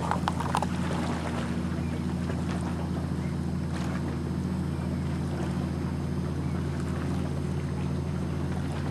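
A steady low hum that does not change, with a few soft knocks and splashes from kayak paddles in the first second and again about four seconds in.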